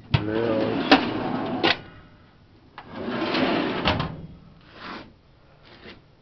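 Steel drawers of a metal cabinet sliding open and shut, each a loud scraping slide marked by sharp metal knocks. It happens twice, then once more, fainter, near the end.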